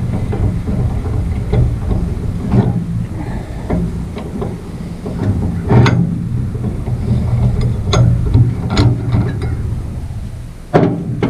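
Metal clinks, knocks and scrapes as a round collar is worked off a bench vise's spindle and lifted away, over a steady low rumble, with a louder knock near the end.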